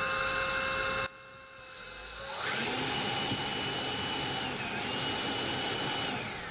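Ryobi 18V leaf blower's electric motor and ducted fan, nose cone removed, running at full speed with a high whine. The sound breaks off suddenly about a second in. About two seconds in the fan spins back up, holds steady at about 16,000 rpm with one brief dip, and winds down near the end.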